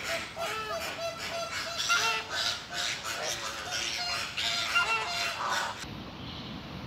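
A flock of flamingos honking, with many short, goose-like calls overlapping in a dense chatter. About six seconds in the calls stop abruptly and give way to a steady low background noise.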